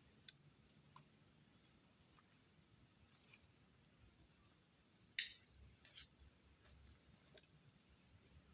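Faint night insects, cricket-like, chirping in short high-pitched bursts. A few sharp snaps or clicks, the loudest about five seconds in.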